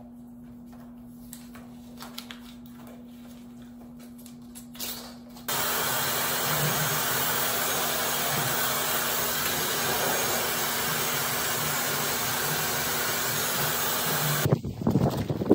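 Handheld hair dryer switched on about five seconds in, blowing with a loud, steady rush of air and motor noise. It cuts off suddenly near the end. Before it starts there is only a faint steady hum.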